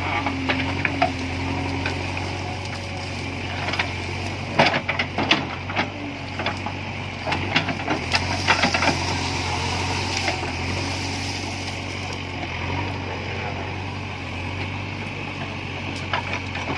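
A diesel engine running steadily at low speed, with repeated short knocks and clanks over it, clustered in two bunches around the middle.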